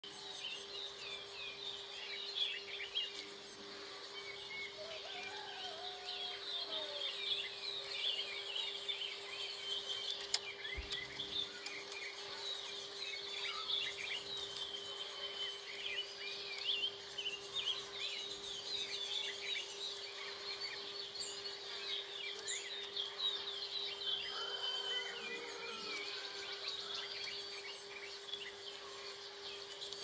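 Many small birds chirping and trilling at once, short high chirps overlapping without pause, over a steady hum.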